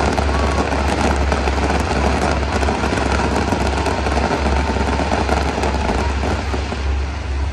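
Aerial fireworks crackling in a dense, continuous barrage over a steady low rumble, easing slightly near the end.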